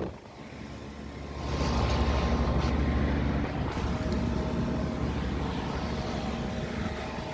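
Lennox Merit central air conditioner condensing unit running: a steady low hum from the compressor and condenser fan, getting louder about a second and a half in.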